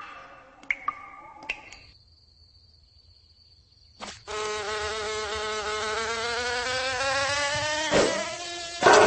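A cartoon ladybug's wings starting up for take-off: a click about four seconds in, then a loud insect-wing buzz that slowly rises in pitch, with a thud near the end. Before it come a few short cartoon chirps and a faint, thin high whine.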